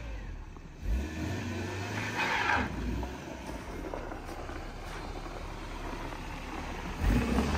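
Toyota Starlet engine running just after being jump-started, with two louder surges, one about a second in and one near the end.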